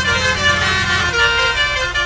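Indonesian 'telolet' bus horn, a multi-tone musical air horn, playing a quick tune of changing notes. A low rumble underneath drops away about a second in.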